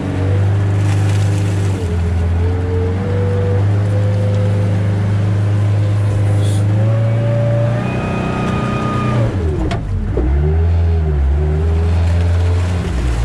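Engine of a four-wheeled Shatun Neo all-terrain vehicle running under load while driving through a peat bog, heard from the cab. The engine note holds fairly steady, then dips and climbs back again about ten seconds in.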